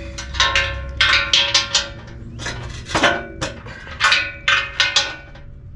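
Hand ratchet clicking in short strokes, with metal clinks of tool on steel, as 17 mm nuts on a truck's steel crash bar are broken loose by hand.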